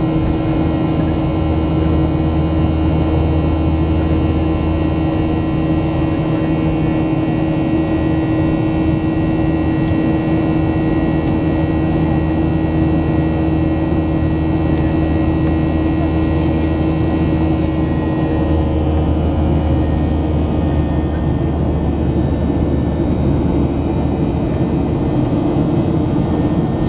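Steady cabin drone of a Boeing 737-800 in flight, heard from a passenger seat: its CFM56 jet engines and rushing air, with a constant hum and several held tones.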